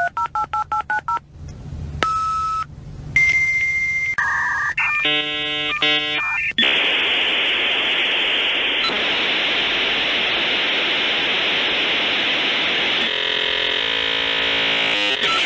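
Dial-up modem connecting: rapid touch-tone dialing, then single answering tones and a burst of warbling handshake tones. About six and a half seconds in it turns into a long, steady hiss, which breaks into fast chopped tones near the end.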